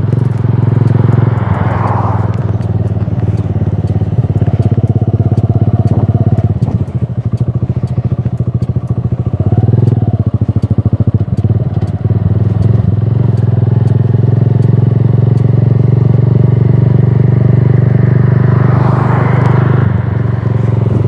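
Motorcycle engine running steadily at low revs, its level dipping and rising a few times. A car passes close by about two seconds in and again near the end.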